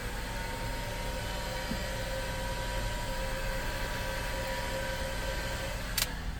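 Electric heat gun blowing steadily with a whining fan, heating the vinyl seat repair compound through a graining pad to set the grain. It cuts off with a click near the end.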